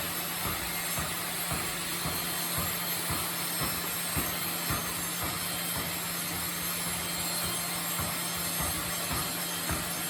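Sawmill machinery running steadily, a constant hum and rushing noise with light knocks every half second or so.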